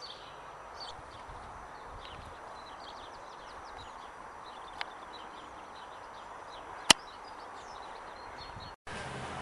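Birds chirping outdoors over a steady background hiss, with a faint tap about five seconds in and one loud sharp click about seven seconds in. The sound cuts off abruptly near the end.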